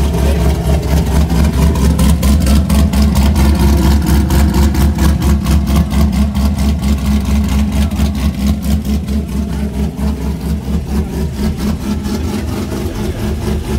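A custom van's engine idling loudly with a steady, rapid pulsing beat, shortly after being started up.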